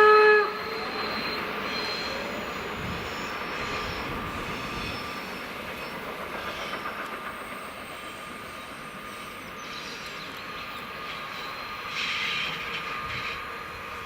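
Steam locomotive 18 201's whistle cutting off about half a second in, followed by the train rolling past with a thin steady squeal over the wheel noise, which fades away toward the end.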